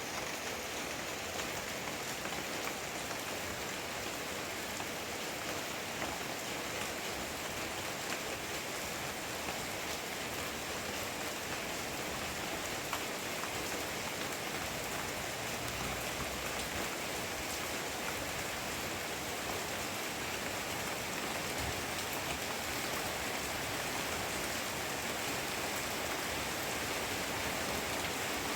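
Heavy rain falling steadily, with scattered sharp drop hits, growing a little louder near the end.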